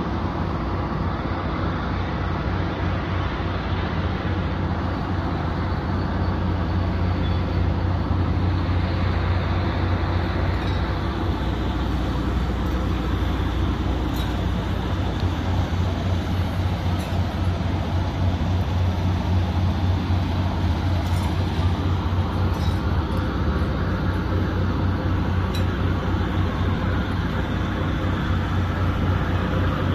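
Carnival ride machinery giving a steady low drone under a dense background hubbub, with a few faint clinks.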